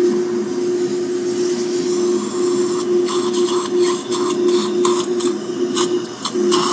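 Surgical suction aspirator running with a steady hum and hiss. From about two seconds in it crackles and slurps in short irregular bursts as the tip draws up blood and saliva from the extraction site.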